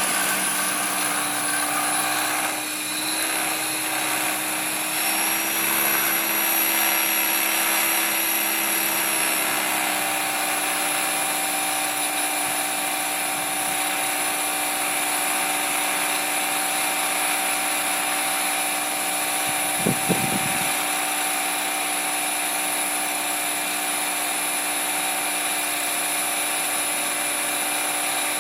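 Align T-Rex 500 ESP electric RC helicopter's motor and rotors running with a steady, many-toned whine that shifts in pitch about 3 and 10 seconds in, with a brief rattle about 20 seconds in. The sound carries what the owner calls bad vibration on hover, which he suspects comes from the tail, the ESC or the throttle.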